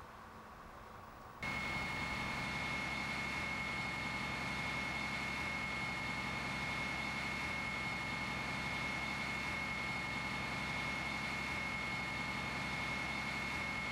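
A fire engine's engine running steadily under load, with a constant high whine over a low drone. It cuts in abruptly about a second and a half in, after a short stretch of faint background.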